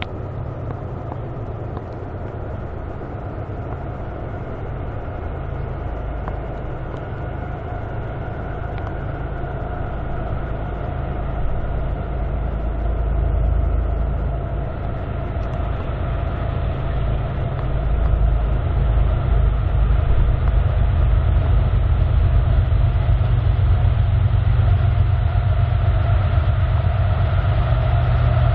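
BNSF diesel freight locomotives approaching at the head of a loaded grain train: a steady engine rumble and drone that grows louder as the train nears, swelling most from about two-thirds of the way through.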